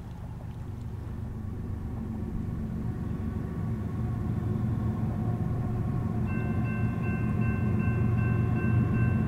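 Approaching freight train's diesel locomotives: a low rumble growing steadily louder, with a steady high ringing tone added about six seconds in.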